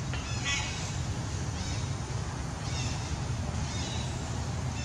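Young long-tailed macaque crying: four short, high-pitched cries about a second apart, over a steady low rumble.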